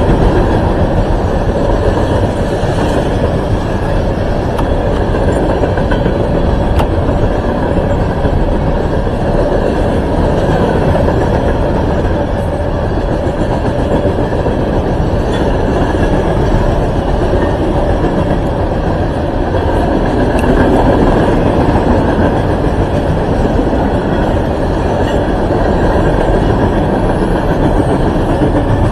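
Loaded coal hopper cars of a freight train rolling steadily past, a continuous rumble of steel wheels on the rails.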